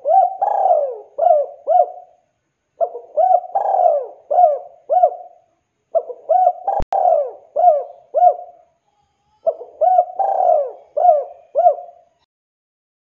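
Spotted dove (tekukur) cooing: four repeated phrases of several coo notes each, about three seconds apart. A single sharp click falls in the middle of the third phrase.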